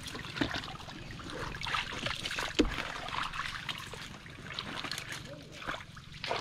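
Wet mud squelching and shallow water trickling and splashing as a stick is worked into a crab burrow in mangrove mud, with scattered sharp clicks and knocks; the loudest knock comes a little before halfway.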